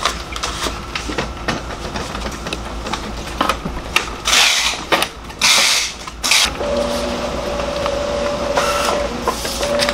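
HP 477 inkjet printer being handled: clicks and knocks as its tray and repair slab are moved, several loud scraping swishes in the middle, then a steady mechanical whine from the printer starting about two-thirds of the way through.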